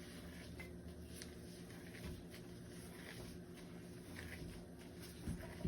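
Hands kneading fried-dumpling dough in a bowl: faint soft working sounds over a low steady hum, with a dull knock a little after five seconds.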